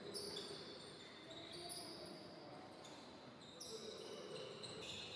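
Faint background noise of a large sports hall, with short high tones coming and going throughout.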